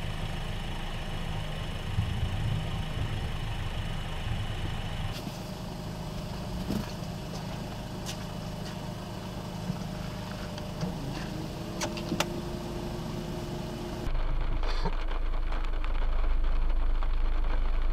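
A vehicle engine idling with a steady low hum, with a few sharp clicks. The sound changes abruptly twice, and near the end it becomes louder and muffled, as heard from inside the vehicle.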